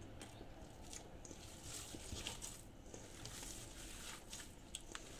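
Hands kneading and squeezing raw meatball mixture in a stainless steel bowl: faint squishing with scattered small clicks.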